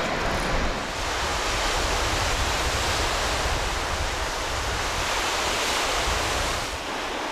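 Baltic Sea surf washing onto the beach: a steady rushing, with wind rumbling on the microphone. It eases slightly near the end.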